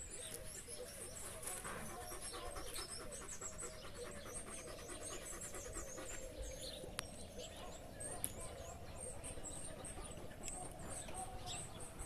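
Outdoor village ambience: many small birds chirping continuously, over a dense run of lower short repeated calls. A couple of sharp clicks come about seven and eight seconds in.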